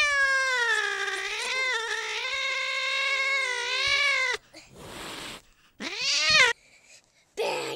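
A young girl's long, wavering, cat-like wail lasting about four and a half seconds, followed by two shorter cries, as she plays at being mauled by a toy cat.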